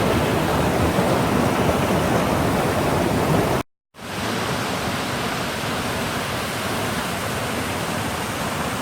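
Waterfall cascades: a steady rush of falling water. It cuts out completely for a moment a little under four seconds in, then resumes slightly softer.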